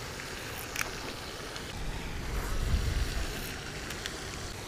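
Steady outdoor background noise with a low rumble that swells past the middle and then fades, and one sharp click about a second in.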